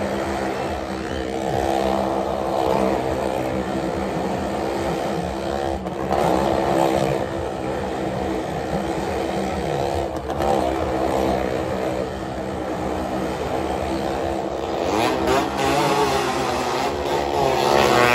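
Motorcycle and car engines revving without a break as they ride round the wall of a well-of-death drum. The pitch rises and falls as they circle, with a sharp rising rev near the end.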